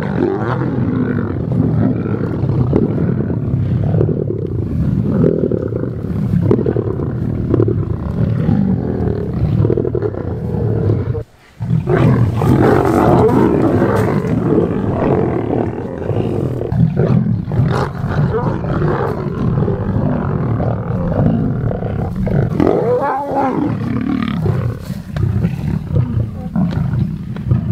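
A pride of lions growling and snarling as they squabble over a kill, several animals at once, loud and continuous. The sound breaks off for a moment about eleven seconds in, then resumes.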